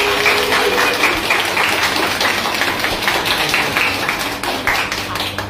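A small group of people clapping their hands, the clapping easing off a little near the end.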